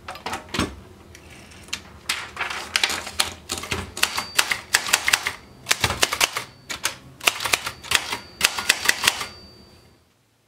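Brother Charger portable manual typewriter being typed on: type bars strike the platen in quick runs of sharp clicks, with a few heavier thumps among them, and it falls silent near the end.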